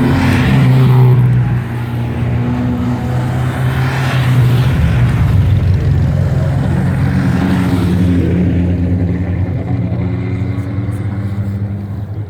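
Race cars driving past one after another on the descent, several engines running at moderate revs and overlapping, the pitch shifting every few seconds as cars go by. It fades somewhat near the end.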